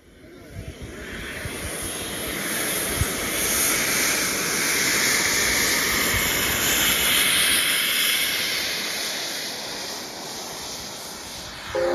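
Small model jet turbine in an RC glider-jet running at high power for the takeoff run, a loud rushing noise with a high whine. It swells over the first couple of seconds and eases off slightly near the end, when music comes in.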